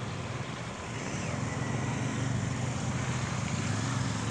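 A motor engine running steadily with a low drone, growing a little louder about a second in.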